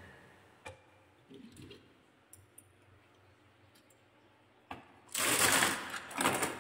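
Light clicks and small knocks of a die-cast toy car being handled on a wooden track, then, about five seconds in, a second and a half of loud rattling scrape.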